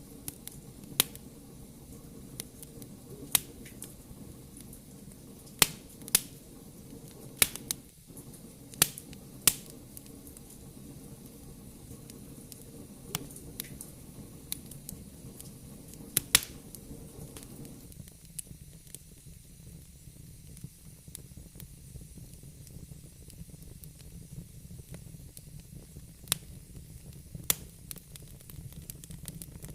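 Wood fire in a fireplace crackling: sharp, irregular pops and snaps over a low, steady hiss of burning. The low background sound thins about two-thirds of the way through.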